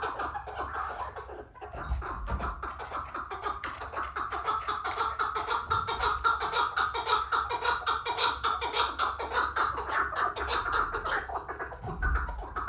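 White chukar partridge calling: a rapid, unbroken run of repeated clucking notes, with a brief dip about one and a half seconds in.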